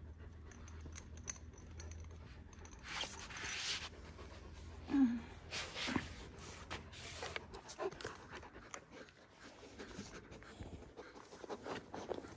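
One-year-old Kangal dog panting in breathy bursts, with a short low voice sound about five seconds in.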